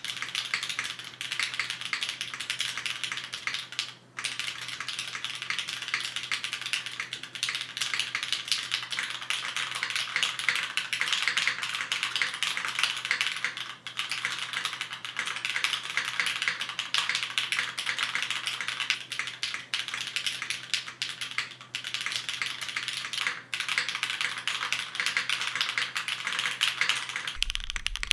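Continuous fast typing on a Matrix custom mechanical keyboard with lubed, polished Hyperglide Cherry MX Black linear switches and GMK keycaps: a dense stream of key clacks with a few brief pauses.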